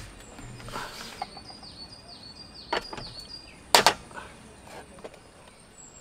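A bird repeating a short, high, falling chirp about six times in quick succession. Near the middle come two sharp clicks about a second apart, the second one loud.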